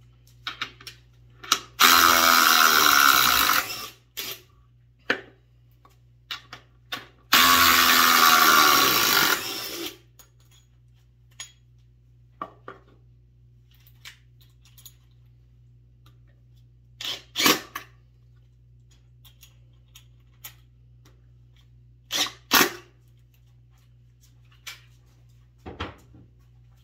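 DeWalt DCF840 cordless impact driver running under load in two bursts of about two seconds each, its hammer mechanism rattling steadily. A few short clicks and knocks follow later.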